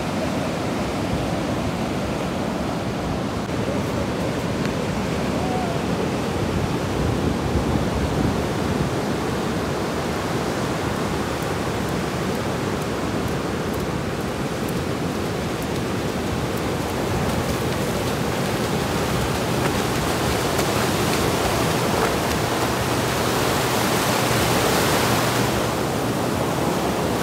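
Ocean surf breaking and washing up a sandy beach: a steady rushing noise that grows louder and hissier near the end as the foam washes in close.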